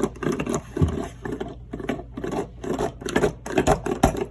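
Rapid, irregular clicks and taps of small objects being handled, several a second, coming quicker and louder near the end.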